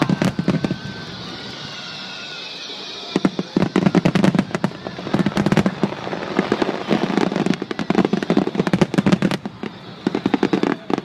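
Aerial fireworks display: a dense, rapid crackle of many small bangs from crackling star shells. It eases briefly near the start with a faint falling whistle, then picks up again about three seconds in and keeps crackling.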